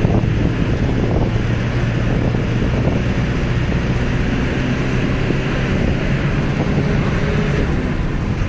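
Safari vehicle's engine running with a steady low hum, with wind rushing over the microphone as the vehicle moves.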